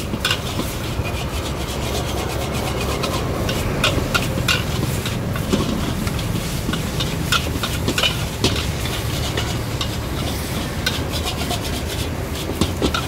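Metal spatula scraping and clacking against a steel wok as egg noodles and greens are stir-fried, many quick strokes over the frying, with a steady low rumble underneath.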